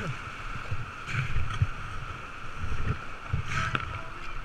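Whitewater rushing and splashing close around a kayak as it is paddled, with irregular low thumps.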